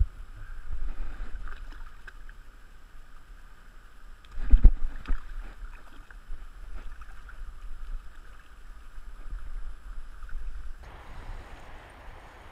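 Shallow river water running over stones, with scattered splashes and knocks and one heavy low thump about four and a half seconds in. The water sound broadens and fills out near the end, and a low wind rumble sits on the microphone.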